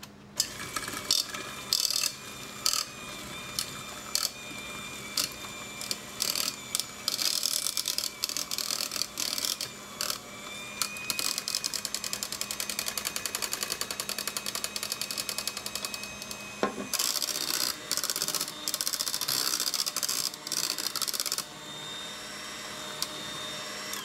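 KitchenAid electric hand mixer running, its wire beaters whipping boiled potatoes and milk in a stainless steel pot: a steady motor whine with frequent clicking and clatter as the beaters knock against the pot. The whine drops away about two-thirds of the way through, and the clatter eases off a few seconds before the end.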